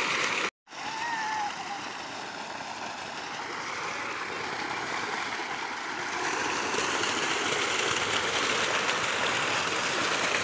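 Water gushing steadily from a tube-well delivery pipe into a concrete tank and splashing. The sound cuts out for a moment about half a second in.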